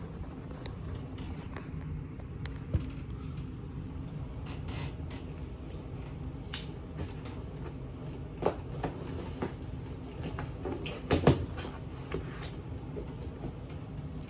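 Cardboard shipping box being cut open with a knife and its flaps handled: scattered scrapes, clicks and knocks, the sharpest a cluster about eleven seconds in, over a steady low hum.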